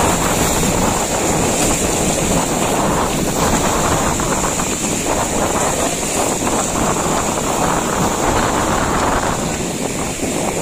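Strong wind buffeting the microphone over the rush and splash of rough sea around a small fishing boat, a steady loud noise that eases slightly near the end.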